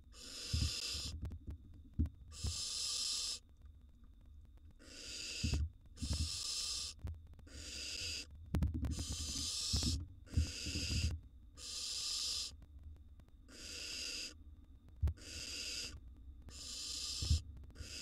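Barn owl nestlings giving hoarse, hissing begging calls, a string of bursts about a second long each repeated every second or two. A few low thumps sound under them.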